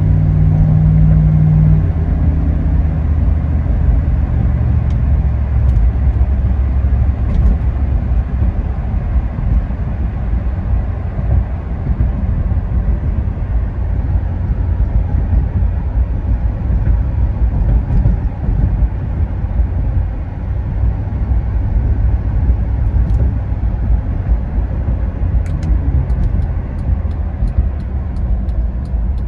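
2004 Chevrolet SSR's 5.3-litre V8 heard from inside the cabin while cruising, a steady low engine drone with road noise. A stronger engine hum in the first two seconds eases off as the revs come down.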